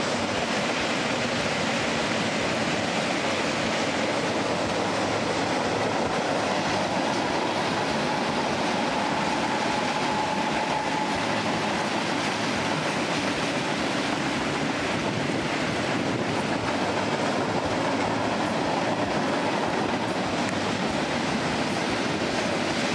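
Freight train cars rolling past, with a steady noise of wheels on rail.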